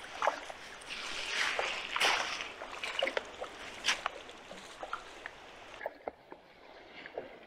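River water splashing and trickling, with a louder rush of splashing for about a second and a half starting a second in and a few short sharp splashes or knocks after it.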